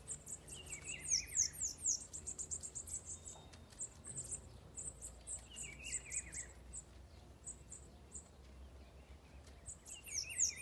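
Small songbirds chirping in rapid, high, quick notes, with a short descending twittering phrase that comes three times, about every five seconds.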